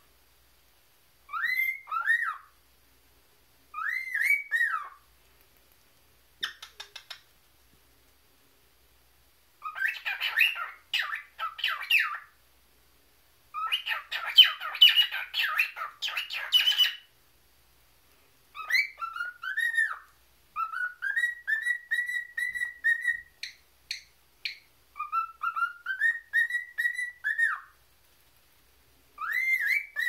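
Cockatiel whistling short rising-and-falling two-note phrases, with two stretches of harsh, scratchy chattering in the middle, then longer runs of whistled notes climbing in pitch.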